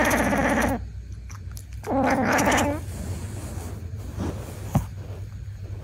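A sleeping ginger cat making buzzy vocal sounds with its mouth half open. One ends shortly after the start, and another lasts just under a second and trails off falling in pitch. A single light tap comes near the end.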